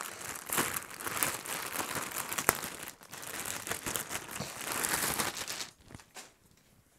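Clear plastic garment bag crinkling and rustling as a football shirt is pulled out of it, stopping about six seconds in.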